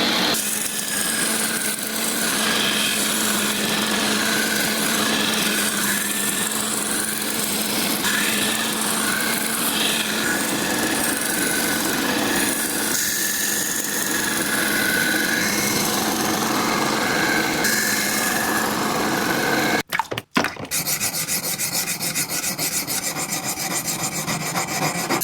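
Steel knife blade being thinned and sharpened on an abrasive: a steady grinding rasp of metal on abrasive, then, after a brief break, rapid, evenly repeated filing strokes.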